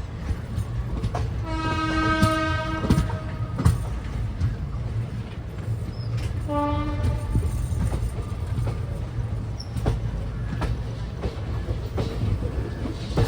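Train moving through a railway station: a steady low rumble with the clack of wheels over rail joints. There are two horn blasts, a longer one about a second and a half in and a shorter, slightly lower one about six and a half seconds in.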